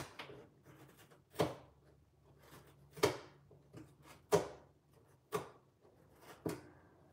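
A nail slitting the packing tape on a cardboard box: six short, sharp scrapes, about one every second and a bit.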